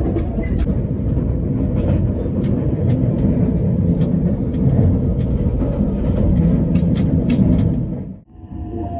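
287-series electric express train running at speed: a steady rumble with sharp clicks of wheels over rail joints. About eight seconds in the sound drops out abruptly, and a quieter running sound with a faint whining tone follows.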